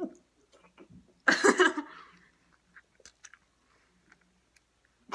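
Wet mouth sounds of biting into, sucking and chewing a lemon, with soft clicks and smacks. A loud, short, breathy burst comes about a second in.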